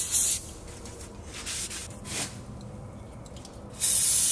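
Aerosol can of brake cleaner hissing as it is sprayed onto a disc brake rotor to degrease it: a long blast that cuts off about half a second in, a few faint short spurts, and another loud blast near the end.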